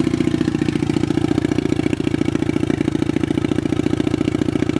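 Loncin pitbike's single-cylinder four-stroke engine idling steadily.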